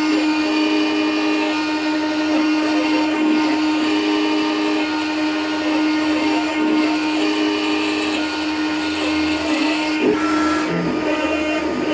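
X-Carve Pro CNC router spindle running steadily while its bit cuts a plastic guitar pickguard blank, a constant motor tone under the rasp of the cutter, with a brief sharper burst about ten seconds in.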